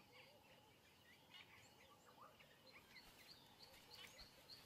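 Faint natural bush ambience: small birds chirping in scattered short calls. About three seconds in, a high chirp starts repeating about three times a second.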